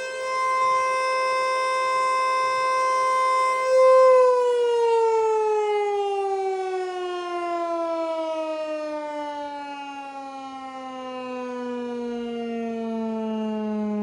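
Federal Signal Eclipse 8 electronic outdoor warning siren sounding a steady tone. About four seconds in, it begins a slow wind-down, the pitch falling steadily lower.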